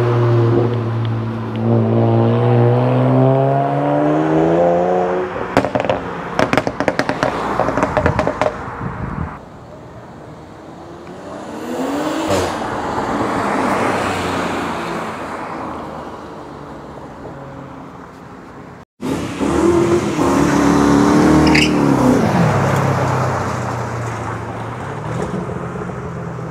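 Cars accelerating away one after another. First a BMW 3 Series coupe's engine revs up as it pulls away, followed by a burst of sharp crackles. Then a BMW 3 Series sedan drives past, and another car accelerates by, rising and falling in pitch.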